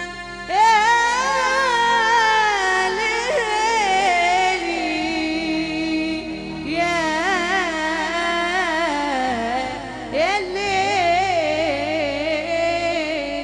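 Live Arabic wedding music: a slow, freely ornamented melody with heavy vibrato over held lower notes, in the style of the improvised opening of a mawwal.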